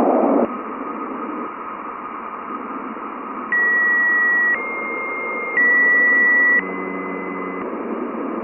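Radio hiss like static from a sonified recording of Jupiter's radio emissions. A louder burst of hiss ends about half a second in. About three and a half seconds in, four steady high beeps follow one after another, each about a second long, alternating slightly in pitch.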